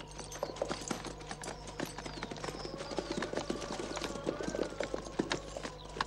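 Horses' hooves striking the hard ground of an open plain: a dense, irregular clatter of many overlapping hoofbeats, getting louder about half a second in, over a steady low hum.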